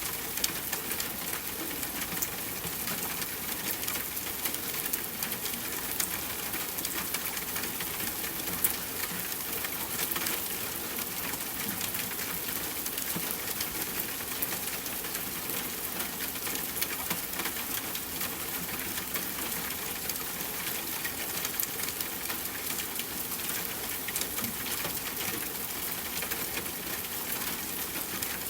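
Soft rain falling steadily, a dense patter of many small drops with the odd louder drip.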